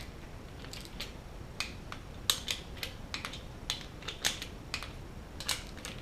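Small ratchet wrench clicking in short, uneven strokes as the timing chain tensioner bolts are run down toward 89 inch-pounds.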